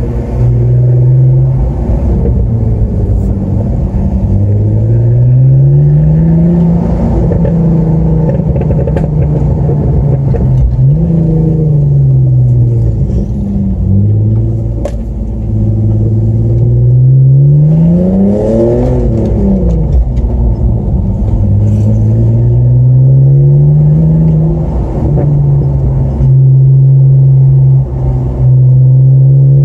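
BMW E46 330Ci's 3.0-litre straight-six with the rear silencer (back box) deleted, heard from inside the cabin while driving. The engine note rises under acceleration and drops back at the gear changes and when slowing, peaking a little past halfway and falling away quickly, then holding steady near the end.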